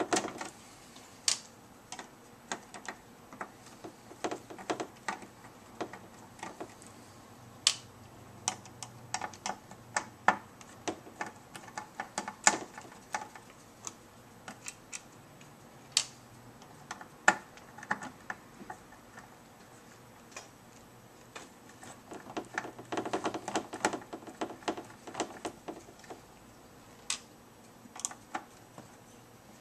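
Small screwdriver backing screws out of the back of a Radeon HD 5770 graphics card, with the card handled on a table: an irregular run of light clicks and ticks, bunched more thickly in two spells.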